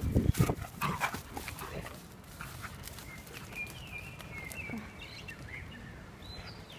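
Two dogs at rough-and-tumble play, giving short barks in the first second or so. After that it goes quieter, with a thin, high, wavering call in the middle.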